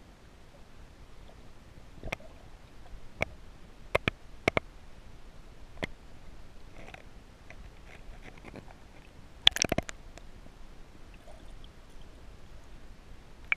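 Underwater sound picked up by a submerged camera: a low, muffled wash of water with sharp clicks, five single ones spread through the first half, then a louder cluster of clicks and knocks about two-thirds of the way through.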